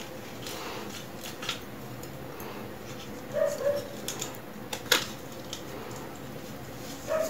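Small clicks and taps of hard plastic fishing-float parts being handled and fitted together on the line, with a sharper click about five seconds in and a brief high squeak about three and a half seconds in.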